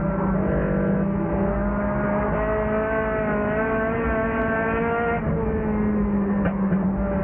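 Race car engine heard from inside the car at racing speed. The engine note climbs gradually, then drops back about five seconds in as the driver lifts.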